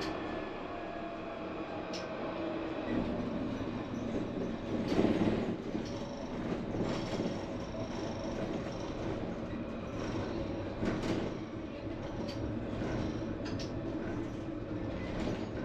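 A tram running along the track: steady rolling noise broken by short clicks and knocks from the wheels, with a louder rumble about five seconds in.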